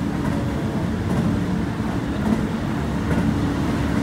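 Keihan electric train running, heard from inside the passenger car just behind the cab: a steady low running noise of wheels on rail.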